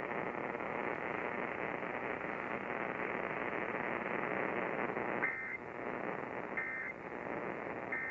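Steady radio static hiss, then three short Emergency Alert System end-of-message data bursts, the warbling two-tone digital signal that closes an alert, starting about five seconds in and a little over a second apart.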